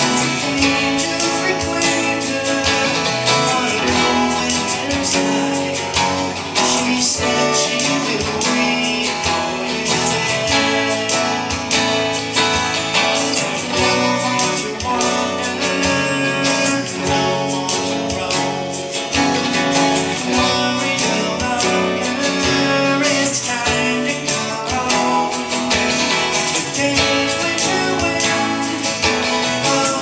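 Acoustic guitar strummed steadily in a live solo song performance, chords ringing continuously.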